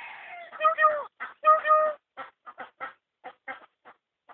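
A myna calling: a harsh rasping note, then loud, clear whistled calls between about half a second and two seconds in, followed by a string of short clicking chirps at about three a second.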